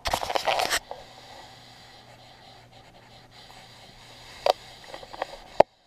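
A kitten pawing at and rubbing against a GoPro, scratching and scraping on the camera housing: a loud scuffle in the first second, then faint rustling with a few sharp taps near the end, cutting off suddenly.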